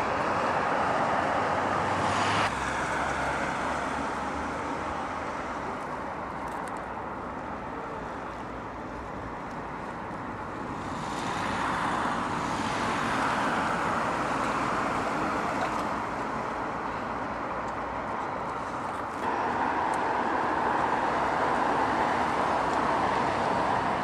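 Road traffic noise: cars passing on a road, a steady hiss that swells and fades in long waves, with sudden shifts in level about two seconds in and again near the end.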